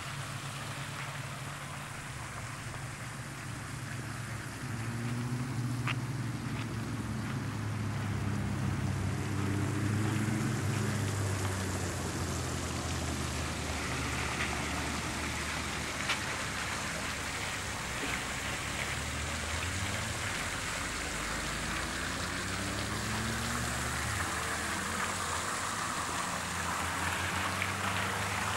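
Small fountain jets spraying and splashing into a shallow pond, a steady hiss of falling water. Beneath it runs a low droning hum that wavers in pitch, and there is one sharp click about sixteen seconds in.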